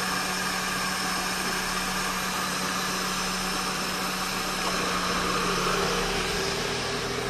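2000 Honda City engine idling steadily, heard close to its open throttle body with the air intake off. The engine is running with its idle air control valve (IACV) blocked off.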